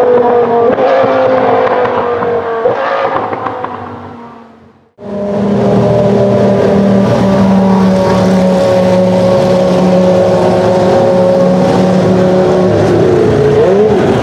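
Judd V10 of an F1x3 three-seater Formula 1 car. At first its note slides down on the track, with two sudden jumps up in pitch as it shifts down, and fades away. Then it holds steady revs for several seconds before the revs rise and fall near the end as the car pulls away.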